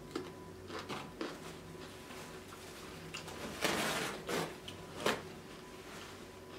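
Close-up eating sounds: a few wet chewing and mouth clicks in the first second or so. Then a loud rustle of a paper napkin being handled starts about three and a half seconds in, with a sharp crinkle about five seconds in.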